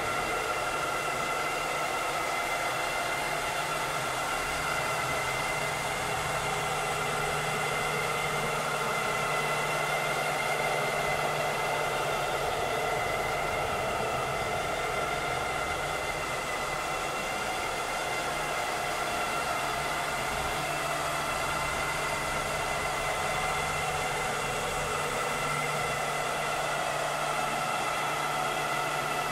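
Vileda robotic vacuum cleaner running: a steady whir of motor and suction with several high whining tones over a low hum.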